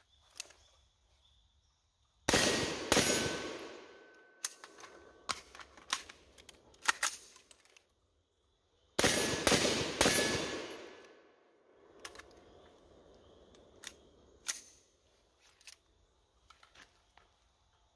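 Rifle shots from a Troy AR-15-style rifle in 5.56 mm: a pair about half a second apart, then about six seconds later another quick group of two or three, each group ringing out over a second or so. Between and after the shots come light metallic clicks and clacks of the rifle being handled during a magazine change.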